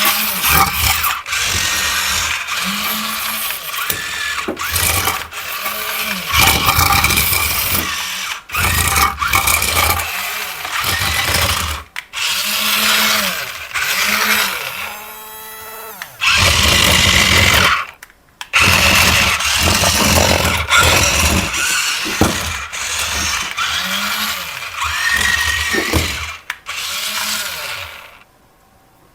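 Small electric motors and gearboxes of a toy remote-control construction vehicle whirring in repeated short runs, starting and stopping every second or two with a quick rise and fall in pitch each time. The sound drops out near the end.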